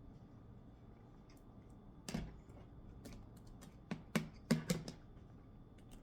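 Sharp taps and clicks of tableware and boiled eggs being handled at a table: one knock about two seconds in, then a quick cluster of taps around four to five seconds in.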